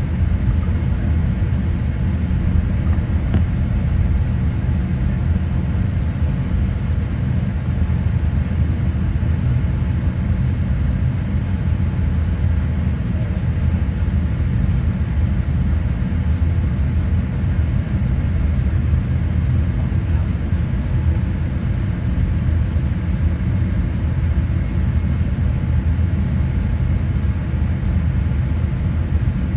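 Cabin noise of a Boeing 787-8 airliner taxiing: a steady low rumble from the engines and the rolling airframe, with a few faint steady tones above it.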